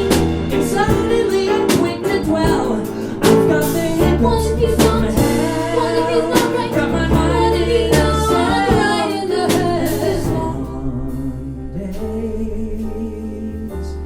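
A small live band of piano, bass and drums plays with a singing voice over it. About ten seconds in, the drum hits drop out and the music gets softer.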